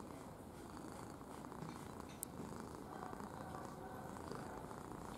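Ginger cat purring steadily right at the microphone while being stroked, with one brief click about two seconds in.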